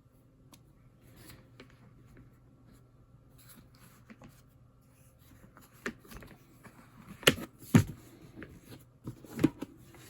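Plastic parts of a folding mini washing machine being handled and fitted together: soft rubbing and scraping, then a few sharp plastic clacks, two close together in the second half and one more near the end.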